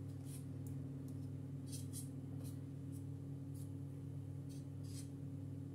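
A series of faint, short scrapes from a knife wiping chocolate pudding off a silicone spatula, over a steady low hum.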